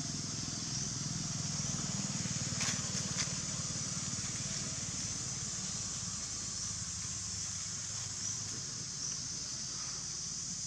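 Steady outdoor ambience: an even high-pitched drone over a low rumble, with two faint clicks between two and a half and three and a half seconds in.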